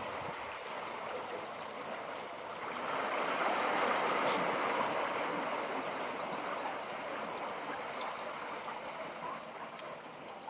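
Sea water washing against the shore. It swells about three seconds in, then slowly subsides.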